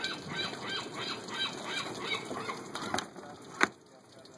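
A bird calling in a rapid run of short notes, about four a second, for the first three seconds; then a click and a single sharp knock about three and a half seconds in.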